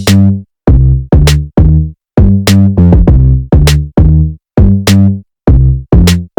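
Electronic music with a drum-machine beat: short, heavy bass notes in a choppy stop-start rhythm, about two a second, with silent gaps between them.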